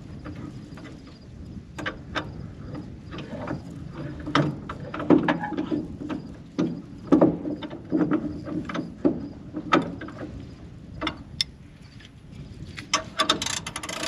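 Hand wrenches working on farm machinery: irregular metal clinks and knocks, with a quick run of ratcheting clicks near the end.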